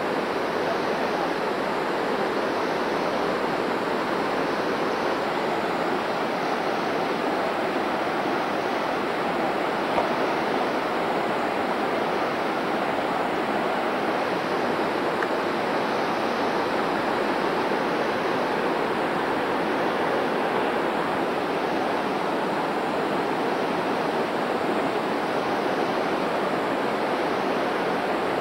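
Water of a shallow, boulder-strewn river rushing steadily over rocks and small rapids.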